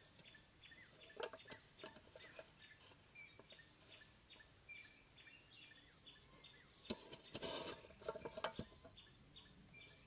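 Faint, repeated short chirps of small birds in the background. A few sharp clicks early on and a louder burst of scraping and rustling about seven seconds in come from hands handling a metal pot, sticks and string on sandy ground.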